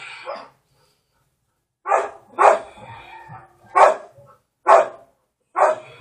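A dog barking five times in a loose series starting about two seconds in, each bark short and sharp.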